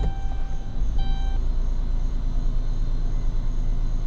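2011 Chrysler Town & Country minivan engine idling steadily, running again after its crank-no-start was cured with a new TIPM. A dashboard chime sounds briefly twice, at the start and about a second in.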